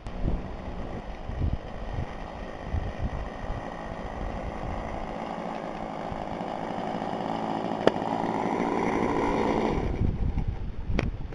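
Small RC model-airplane engine running at low throttle as the plane taxis closer, growing steadily louder, then stopping shortly before the end. Wind buffets the microphone throughout.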